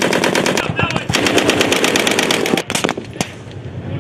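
Belt-fed machine gun firing a long burst at about ten rounds a second, with a short break about two-thirds of a second in, the rapid fire stopping about two and a half seconds in. A few separate, quieter shots follow.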